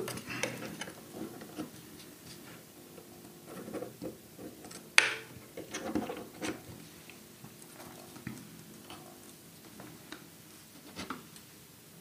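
Small taps, clicks and rustles of a mouse circuit board being handled and set into holder posts on a work mat, with one sharp click about five seconds in.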